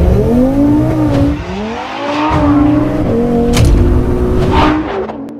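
Tuned turbocharged performance car engine accelerating hard through the gears, its pitch climbing and then dropping back at each gearchange, heard from inside the car.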